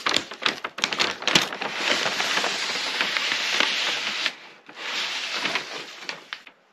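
Large sheets of white paper wrapping being pulled open, rustling and crackling, with a brief lull a little past four seconds before more rustling.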